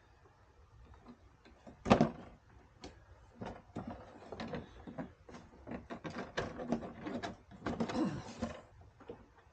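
Hard plastic fender trim and light housing being tugged and pried by hand: a loud knock about two seconds in, then a run of clicks and rattles as the stuck unit is worked at.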